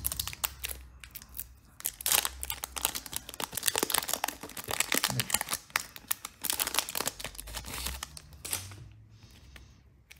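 Foil wrapper of a Pokémon trading card booster pack being torn open and crinkled in the hands, a rapid, irregular run of sharp crackles. The crinkling dies down near the end.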